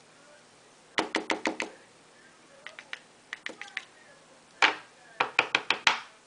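Quick runs of light, hard taps as talc is dusted onto a baked, hardened polymer clay mold. There are three runs of about six taps each; the middle run is lighter and the last opens with a louder knock.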